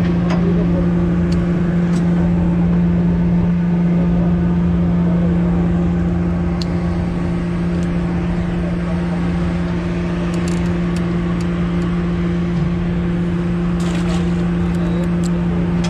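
Steady, unchanging hum of the party boat's engine, with a few light clicks near the end.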